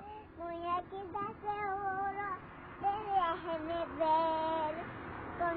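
A young girl singing into a toy microphone, holding long notes in short phrases with brief breaks between them.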